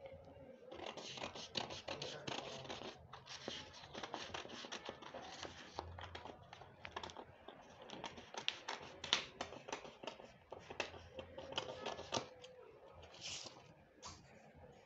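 Scissors cutting through pattern paper: faint, irregular snips with the crisp rustle of the paper sheet.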